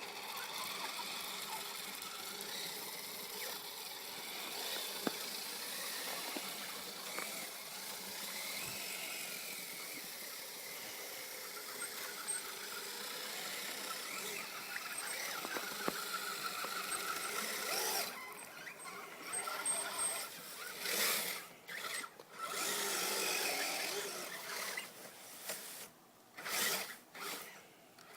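Kyosho Blizzard SR radio-controlled tracked snow vehicle driving: its motor and gears whining steadily for about eighteen seconds, then in short bursts with brief pauses as the throttle is worked on and off.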